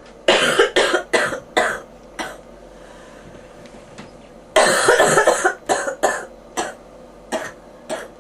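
A person with bronchitis coughing in two fits: about five quick coughs in a row, then after a pause of about two seconds a longer cough followed by several more, tailing off.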